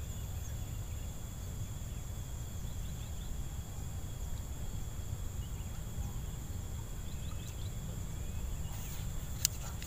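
Steady high-pitched insect drone over a low, constant rumble, with a few faint short chirps and one sharp click near the end.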